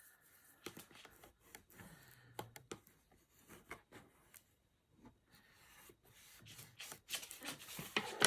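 Card being smoothed down and pressed flat by hand, with light rubbing, scattered small taps and paper scrapes. The handling grows louder near the end, with a sharp knock just before it finishes.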